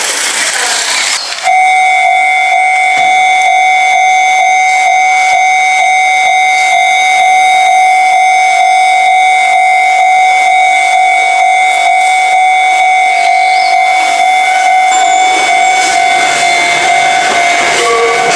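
Railway level-crossing warning bell starting suddenly about a second and a half in, after a brief rush of noise, then ringing steadily with a fast, even pulse. Other, lower tones join near the end.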